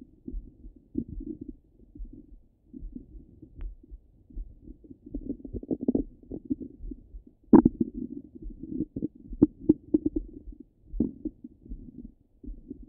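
Stomach and bowel gurgling heard through a stethoscope pressed to the belly: irregular low gurgles and pops, with the loudest, sharpest pop about seven and a half seconds in.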